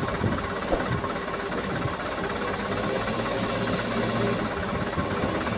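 Diesel engine of a loaded dump truck running steadily as the truck crawls through deep mud, with a couple of short knocks in the first second.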